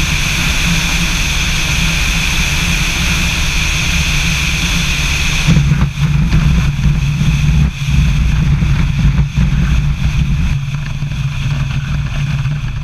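Light aircraft's piston engine and propeller running, with a steady rush of air. About halfway through the high rush drops away abruptly, leaving a low drone broken by a few brief dips as the plane rolls out on the grass runway, fading out near the end.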